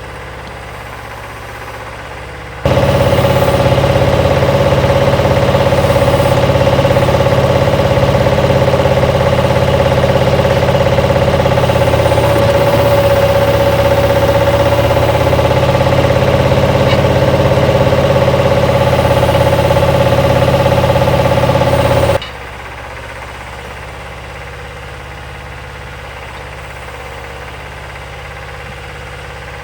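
Bobcat skid-steer loader running steadily. About three seconds in, the sound jumps abruptly much louder, with a steady high whine over the engine. It drops back just as suddenly about twenty seconds later.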